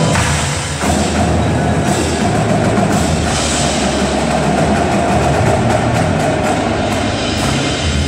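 Indoor percussion ensemble playing: marimbas and other mallet keyboards, drums and cymbals together, over a held note that comes in about a second in and lasts until near the end.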